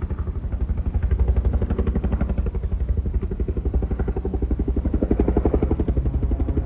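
Single-engine aerobatic airplane's piston engine and propeller running hard in a display pass, a fast, even pulsing drone that grows stronger in the second half.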